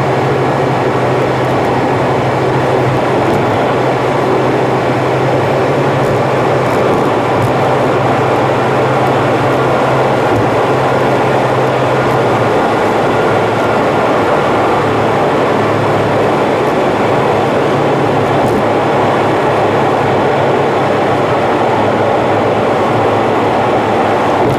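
Car driving at expressway speed: a steady rush of road and engine noise, sped up about three times. A low hum under the noise drops away about halfway through.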